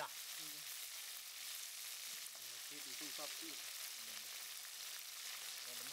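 Frogs frying in hot oil in a wok: a steady, even sizzle.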